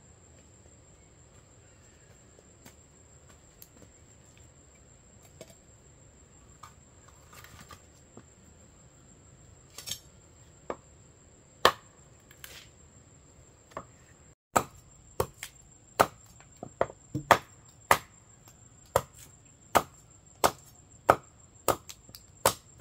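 Machete chopping into a round block of wood: a few scattered knocks at first, then steady sharp strokes about one to two a second through the second half. A faint steady high-pitched whine runs behind it.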